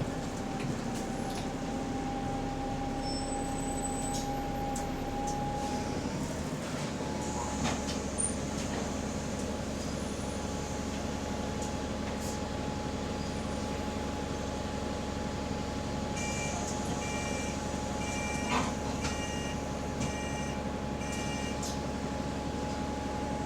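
Bus drivetrain running on the move with a steady thin whine over the engine and road noise, the subtle, weird differential noise; the whine dips briefly about six seconds in and again near the end. From about sixteen seconds in, a run of about six short electronic beeps.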